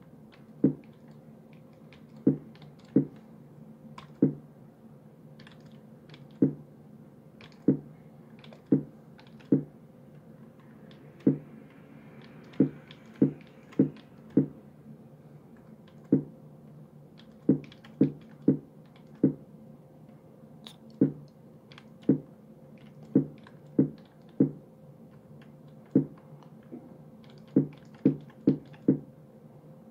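Sorizava stenography keyboard being keyed in chords with both hands, one short clack per syllable at a slow drill pace of roughly one a second, with a quicker run of several near the end. A faint steady hum lies underneath.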